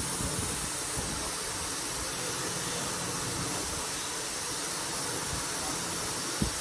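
Steady hiss with no change in level, and one faint knock near the end.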